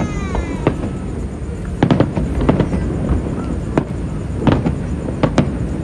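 Aerial fireworks bursting in a run of sharp bangs, several in quick pairs, over a steady low rumble. A falling whistle is heard at the start.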